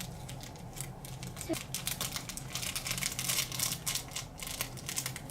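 Rapid light clicking and tapping, densest in the middle, as a small plastic container is shaken and tapped to pour its decorations into a cup of glue slime mixture.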